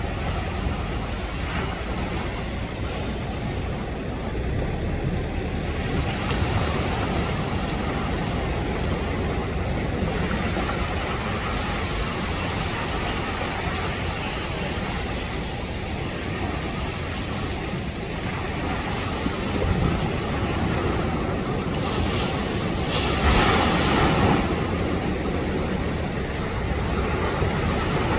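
Surf breaking and wind on the microphone, with the twin outboard motors of a ski boat running as it punches out through the waves. A brief louder rush comes about three-quarters of the way through.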